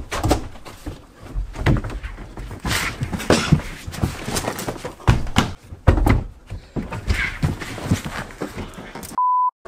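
A person bumping down a carpeted staircase on his backside: a run of dull thuds, roughly one a second. Near the end, a short steady electronic beep.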